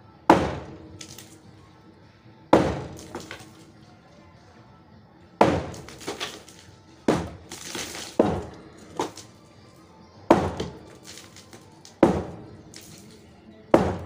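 Hammer blows breaking up a reinforced concrete slab by hand: about nine sharp, cracking strikes at an uneven pace, each followed by a brief rattle of breaking concrete.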